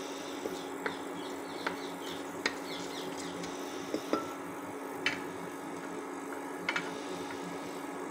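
Cumin seeds crackling in hot ghee in a pressure cooker, with scattered sharp pops and clicks and a wooden spatula stirring and tapping against the pot. A steady hum runs underneath.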